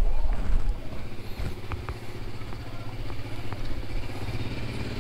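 A vehicle engine idling at a steady pitch, with a louder low rumble in the first second.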